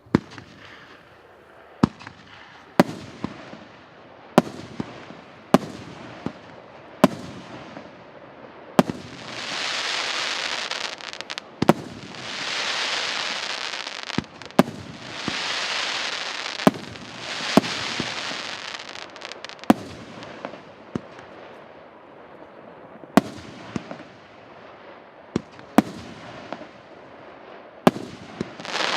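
A 28-shot, 1.8-inch firework cake (the P8715 'Russian New Year' battery) firing: sharp bangs one after another, about one to two seconds apart. In the middle come several loud stretches of hissing crackle, each lasting a second or two.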